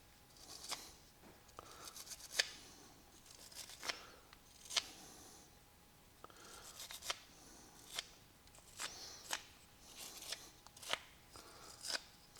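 Brass wire brush scrubbing carbon off the gas regulator knob of an IWI Jak-1 rifle, in short irregular scratchy strokes with sharp ticks of the metal part being handled.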